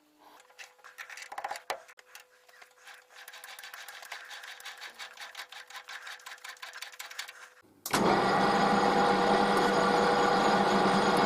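Workshop machinery: several seconds of quiet, rapid mechanical ticking. About eight seconds in it cuts suddenly to a loud machine running steadily with a steady hum.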